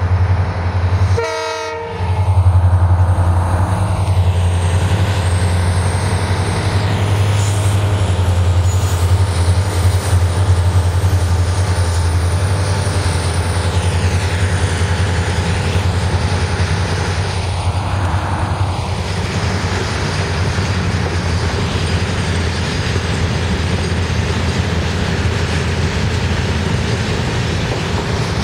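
A long rake of BCNA covered freight wagons rolling slowly past, with a steady low drone and wheels clicking over the rail joints. A short horn blast sounds about a second in.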